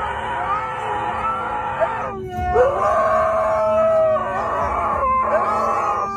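Dog howling in long, drawn-out howls that slide up and down in pitch, breaking briefly about two seconds in and again near the five-second mark before starting another howl.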